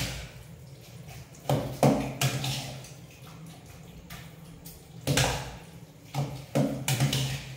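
A ladle stirring and folding curd into cooked vermicelli in a stainless steel pot: wet, squelching mixing strokes with light scrapes on the pot, coming in a few bunches with short pauses between.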